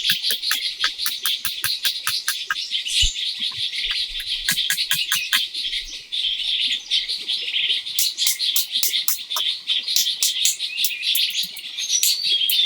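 Birds chirping: quick, short chirps repeated several times a second over a steady high-pitched chorus.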